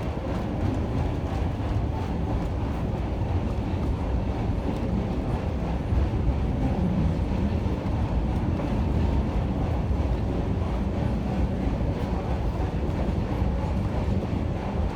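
Railroad passenger train rolling along the track: a steady low noise of wheels and running gear with no clear beat.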